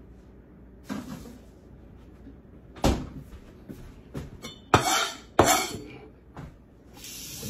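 A refrigerator door being shut, with a soft knock about a second in and a loud thump about three seconds in, then two sharp knocks with short scraping noises about five seconds in as things are handled on a kitchen counter.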